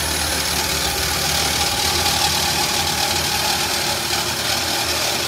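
Reciprocating saw running steadily, its blade cutting through the sheet-steel top panel of an ATM cabinet.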